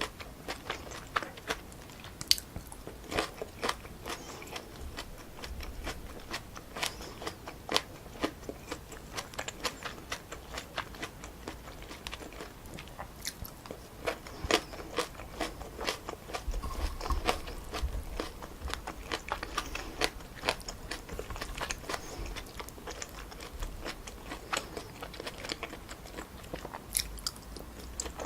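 Close-miked mouth sounds of someone eating a stir-fry of chewy wide glass noodles with pork neck and vegetables: wet chewing with many irregular sharp smacks and clicks.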